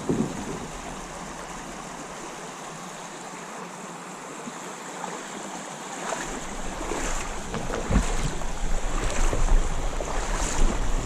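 Steady hiss of shallow creek water. About six seconds in, a low rumble and scattered knocks join it, growing louder toward the end.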